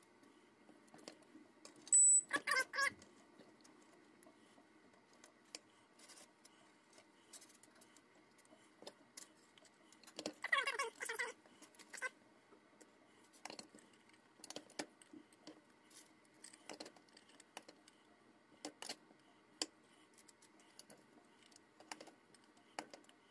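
Scattered light clicks, taps and crackles of ground beef being spooned into crisp corn taco shells: a wooden spoon scraping and knocking in a plastic colander, the hard shells rattling as they are filled. Twice a short pitched, wavering sound stands out, about two seconds in and again about ten seconds in.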